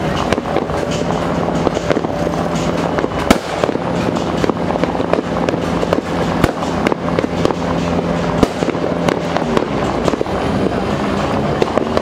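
Many fireworks and firecrackers going off across a neighbourhood at once: a dense, continuous string of bangs and pops, with one sharper bang about three seconds in.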